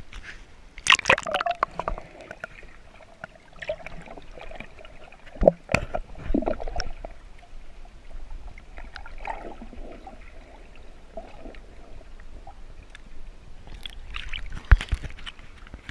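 Water sloshing and splashing against an action camera as it goes under the surface and comes back up, with muffled underwater gurgling in between. There are a few sharp, loud splashes: about a second in, midway, and near the end.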